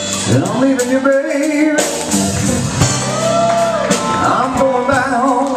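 Live band playing a slow blues jam: an electric guitar lead with bent, wavering notes over drums and bass.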